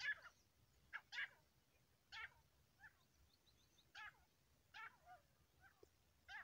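Grey francolin (desi teetar) giving a run of short, faint calls, a little more than one a second.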